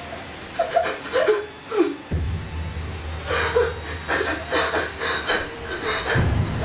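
Women's wordless vocal sounds, crying and breathy cries in short bursts, over a low droning film score that comes in abruptly about two seconds in and swells near the end.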